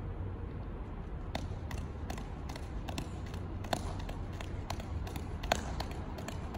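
Heavy 130 g Just Juggling juggling balls slapping into the hands during a five-ball shower, short sharp catches about two to three a second starting about a second and a half in, over a low steady rumble.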